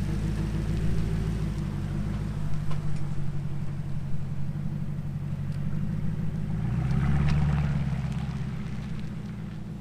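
Toyota Tundra pickup's engine running steadily as the truck pulls away, swelling as it accelerates about seven seconds in, then fading as it moves off.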